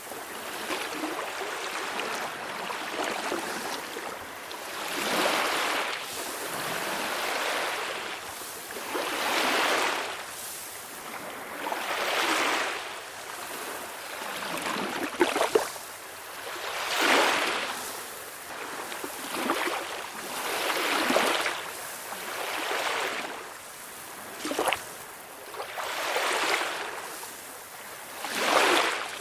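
Small ocean waves breaking and washing up again and again, a swell of surf every few seconds, with a couple of sharper splashes.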